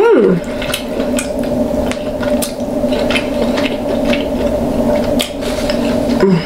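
King crab claw shells being cracked and picked apart by hand while eating, with irregular sharp clicks and cracks and wet squishing of sauced meat.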